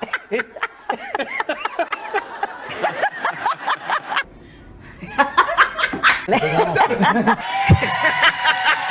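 Laughter: snickering and chuckling in quick, short bursts, with a brief lull about four seconds in.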